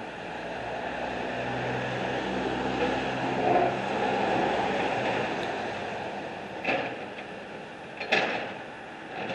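A motor vehicle passes, its engine hum and tyre rush swelling and then fading over several seconds, followed by two short knocks near the end.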